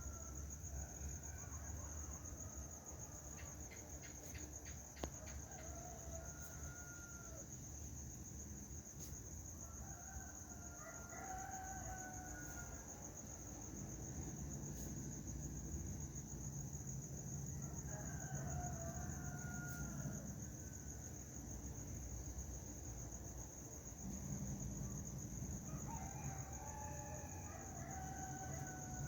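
Rooster crowing about five times, spaced several seconds apart, over a steady high chirring of crickets.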